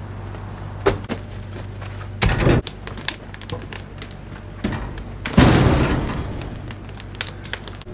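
Split firewood logs being thrown into the open firebox of an outdoor wood-fired boiler: a few heavy thuds and wooden clatters, the loudest about two and a half and five and a half seconds in, the second with a longer rattling tail. A steady low hum runs underneath.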